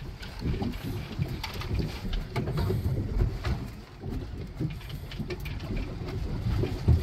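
Wind rumbling on the microphone and sea noise aboard a small boat at sea, with a few sharp knocks between about one and a half and three and a half seconds in.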